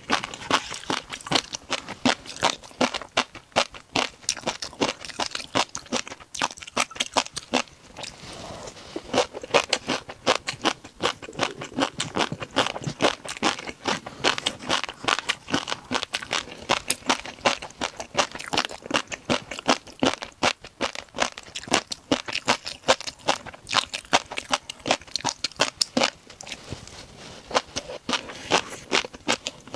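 Close-up chewing of crunchy shrimp food: a dense run of rapid crunches and crackles, with a short lull about eight seconds in.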